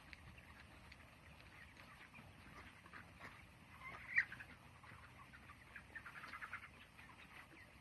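A flock of broiler chickens, about three weeks old, faintly peeping and chirping in many short calls, with one louder call about four seconds in.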